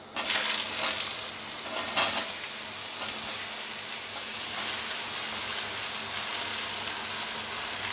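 Finely cut ash gourd being tipped into hot oil in a steel kadai. A loud sizzle starts suddenly as it hits the oil, flares up again as more goes in near the start and about two seconds in, then settles to a steady frying sizzle.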